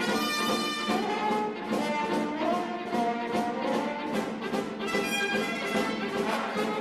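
Orchestral cartoon chase music led by brass, trumpets and trombones, with a quick, even beat.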